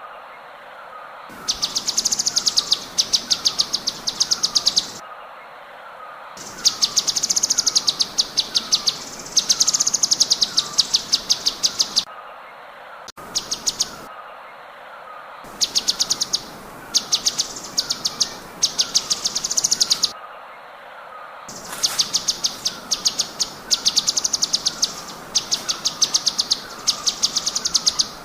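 Cucak cungkok song in rapid-fire 'tembakan' volleys: runs of very fast, high, rattling notes lasting a few seconds each, about five runs separated by short pauses. Underneath, a fainter lower chirp repeats about twice a second.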